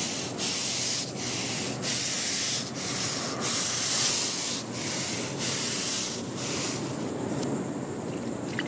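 A stiff-bristled deck brush scrubbing wet asphalt pavement in about ten even back-and-forth strokes, a little more than one a second, working degreaser solution into the grease. Near the end the scrubbing stops, leaving a softer steady splash of rinse water poured onto the pavement.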